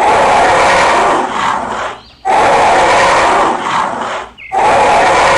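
Animal roar sound effects dubbed over toy dinosaurs squaring off: three long, loud roars of about two seconds each, with brief breaks between them.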